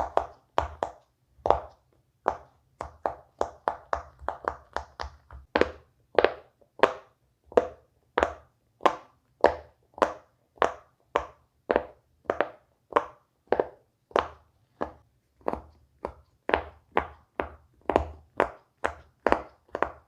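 Silicone Pop It fidget toy bubbles being pressed down one after another, each giving a short soft pop, in a steady run of about two pops a second.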